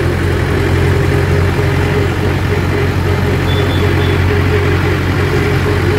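Mahindra 475 DI tractor's four-cylinder diesel engine running steadily while driving, heard from the driver's seat.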